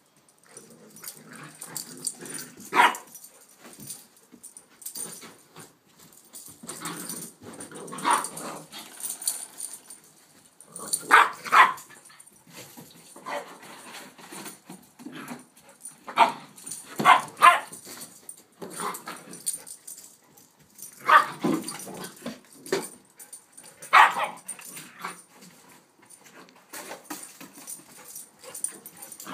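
Dogs barking and yipping in play: a young Rhodesian Ridgeback and a Shepherd–Rottweiler puppy. Short barks come every few seconds, some in quick pairs or threes.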